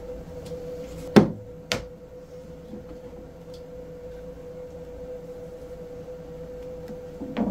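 A steady motor hum with two sharp knocks a little over a second in, the first the loudest, then a short run of clattering knocks near the end.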